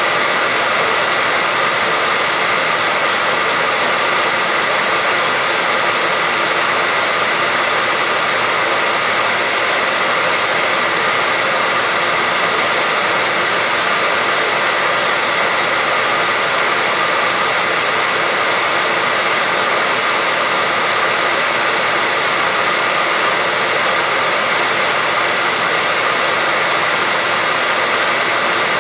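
Hair dryer running continuously at a steady speed: an even rush of blown air with a faint steady whine from its motor and fan.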